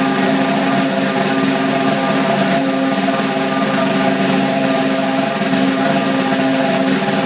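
Snare drum roll, sustained and even at a steady loudness, with the drum's ringing tones held underneath the rapid strokes.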